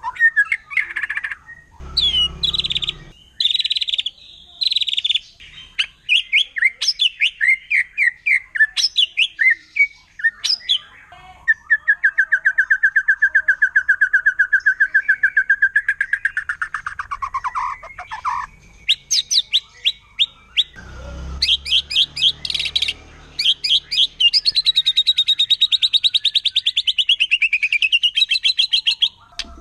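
Wild white-rumped shama (murai batu) singing a loud, continuous, varied song: whistled phrases broken by long runs of very fast repeated notes, the rapid rattling 'tembakan' delivery that shama keepers use to provoke other shamas into singing.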